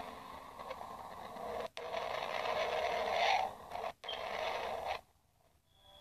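Crackling, static-like hiss with faint steady tones underneath, like space radio emissions converted to sound. It drops out briefly twice and goes near silent about five seconds in.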